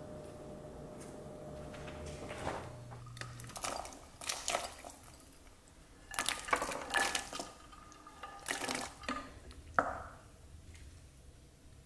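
Chopped green beans and carrots tipped from a plate into a pot of broth, splashing in several bursts, then a wooden spatula stirring the soup, with one sharp knock against the pot near the end.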